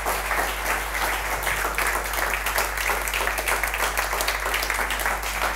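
Audience applauding: many people clapping steadily at the end of a presentation.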